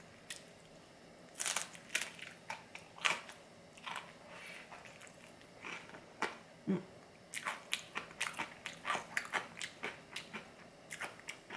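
Crunching and chewing of a crisp cracker topped with mashed avocado, close to the microphone: irregular sharp crunches that come in clusters.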